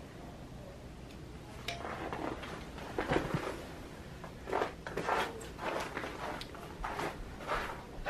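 Quiet, irregular crunches and rustles of people creeping on foot through snow.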